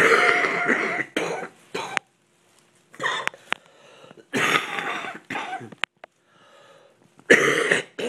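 A sick man coughing loud and hard in several fits with short pauses between them. It is a chesty cough from a flu-like illness that has lasted weeks.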